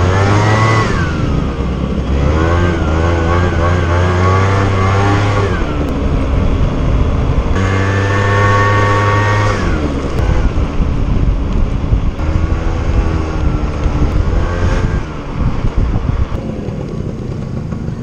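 Motorcycle engine heard from on board, rising in pitch under throttle and dropping sharply at each gear change or roll-off, about three times, then running lower and more evenly near the end.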